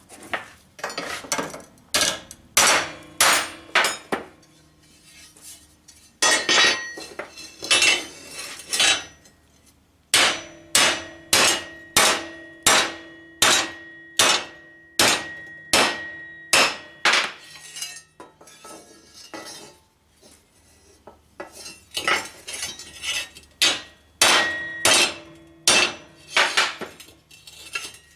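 Hammer blows on the bent metal front bumper of a Cub Cadet LT1045 riding mower, in runs of about two strikes a second with short pauses between, the metal ringing after each strike. The dented bumper is being beaten straight.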